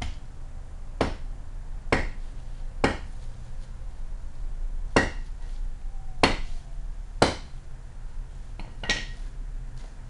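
A hatchet chopping through a pheasant's wing on a cloth over concrete: about eight sharp chops, irregularly spaced.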